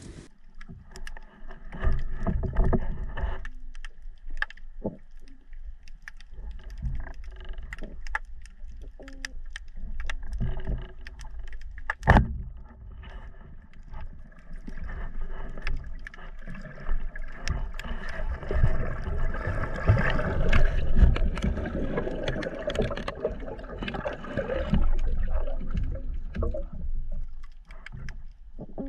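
Underwater sound through a camera housing: low rumbling water noise with small knocks and bubbling and a faint steady hum. About twelve seconds in there is a single sharp crack, the speargun firing.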